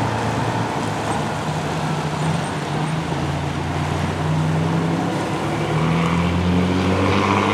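A heavy engine running with a steady low drone that climbs in pitch near the end, as if accelerating.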